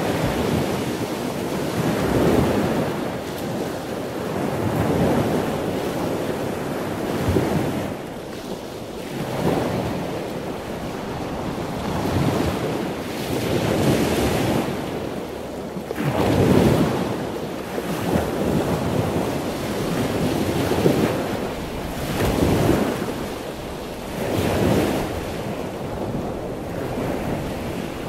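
Ocean surf breaking and washing in, swelling and falling back every two to three seconds, with wind buffeting the microphone.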